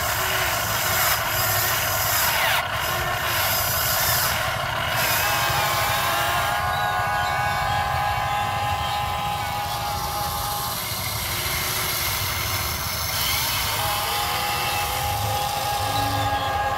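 Huina 580 RC excavator at work in mud: whining motor tones that start, stop and glide in pitch as the boom, arm and bucket move, over a steady low rumble.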